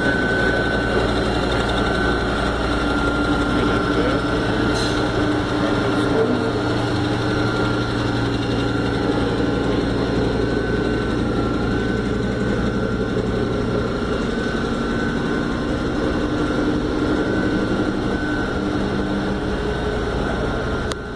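Wayne 60 cfm belt-driven air compressor running steadily: an electric motor driving the piston pump through V-belts, making a continuous mechanical hum with a steady high whine over it.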